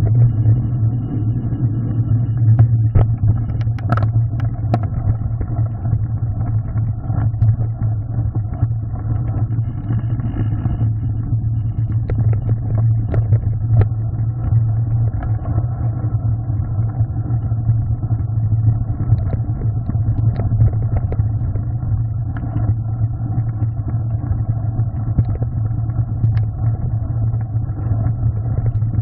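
Mountain bike riding a forest trail, heard through a handlebar-mounted camera: a steady low rumble of tyres on the track and vibration through the bars, with scattered knocks and rattles as the bike rolls over boardwalk and gravel.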